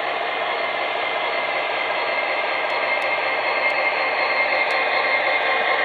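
MTH HO-scale diesel locomotive model's onboard sound system playing a steady diesel engine sound through its small speaker, growing slightly louder as the locomotive approaches.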